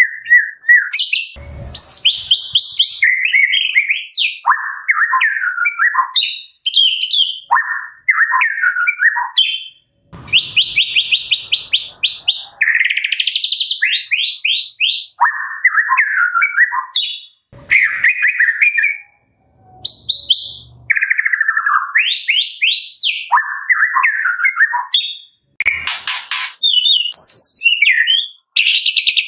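White-rumped shama singing a loud, varied song. Whistled phrases are broken by short pauses and mix runs of quick rising notes with lower warbled and chattering notes.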